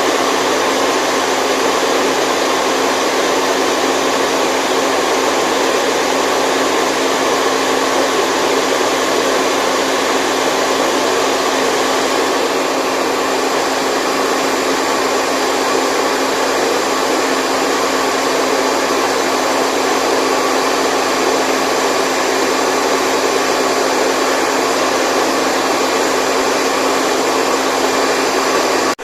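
Steady white noise: an unbroken rushing hiss with a faint steady hum under it.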